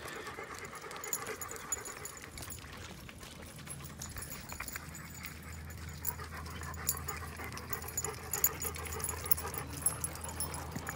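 Dogs panting as they walk on leash, with scattered light clicks. A steady low hum comes in about halfway through.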